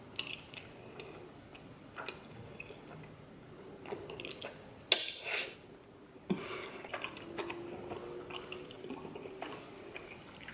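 A person eating chewy rice-cake noodles: soft mouth clicks and chewing, with a short slurp about five seconds in.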